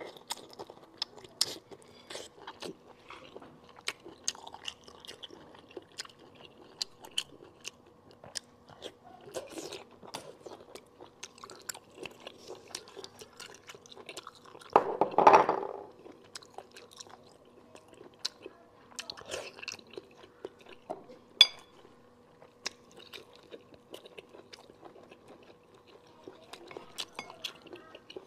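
Close-miked chewing of sea snail meat: wet mouth sounds and many small clicks. About halfway through there is a louder sound lasting about a second, and a few seconds later a single sharp click.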